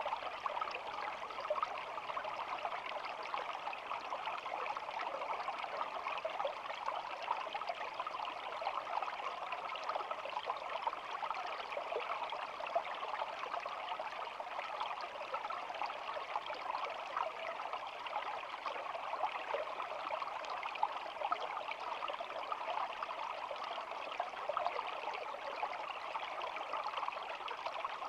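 Shallow stream flowing and babbling steadily: an even rush of water dense with small trickles and splashes.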